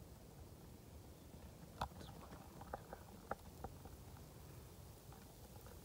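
Quiet woodland background with a few faint, scattered clicks and small rustles, starting about two seconds in and bunched over the next couple of seconds.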